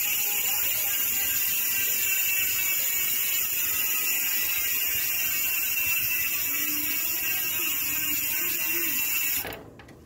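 Strummer 280 freehub on a spinning mountain-bike rear wheel, freewheeling with a steady, high-pitched ratcheting buzz. It cuts off suddenly about a second before the end.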